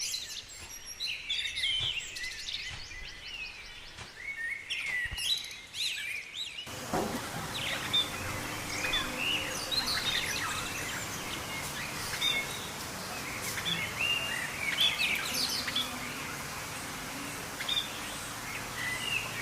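Wild birds chirping and singing, many short, quick calls overlapping. About six and a half seconds in, the background changes abruptly to a busier, noisier one with more birds calling.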